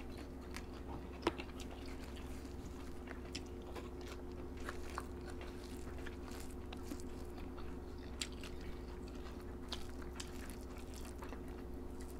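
Close-up eating sounds: scattered small clicks of chewing and crunching, as raw greens and rice are eaten by hand, over a steady low hum.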